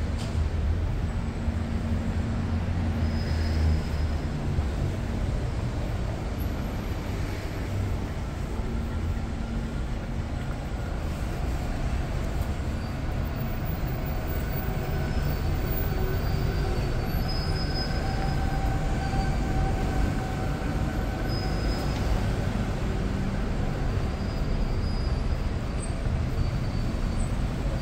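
Steady low rumble of a moving vehicle, with faint, thin, steady whining tones in the middle.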